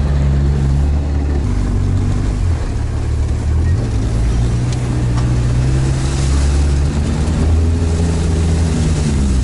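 Engine of a Sherp all-terrain vehicle running under load while driving, its pitch stepping up and down several times with the throttle.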